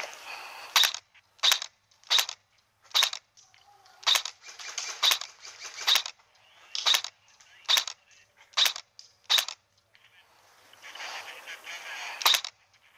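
Airsoft replica firing single shots in a steady series, about a dozen sharp cracks less than a second apart, with a pause before a last shot near the end.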